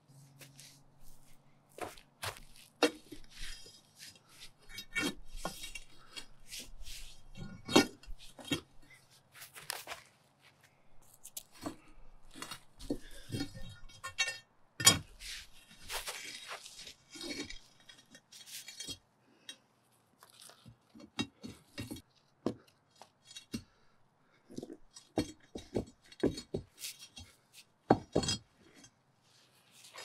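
Concrete sidewalk demolition by hand: a steel crowbar scraping, clinking and ringing against concrete slabs as they are pried up, with broken concrete pieces knocking together. Irregular sharp knocks throughout, with three louder hits spread across the stretch.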